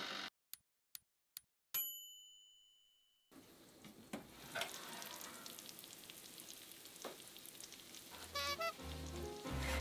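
Toaster oven timer: three ticks, then a bell ding that rings out and fades over about a second and a half, marking the end of baking. Then the baked cheese-topped curry doria sizzling and crackling in its dish.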